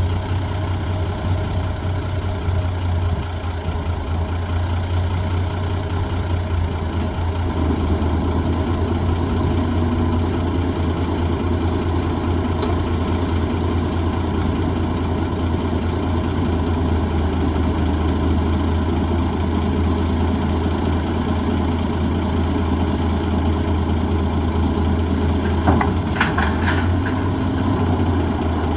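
Heavy six-cylinder diesel engine of an M816 wrecker running steadily at idle. About 26 seconds in, a short cluster of sharp metallic clanks.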